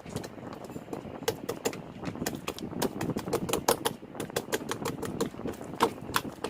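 Jelly slime being squeezed and kneaded by hand, giving an irregular run of crisp clicking pops, several a second, over a soft squishing rustle.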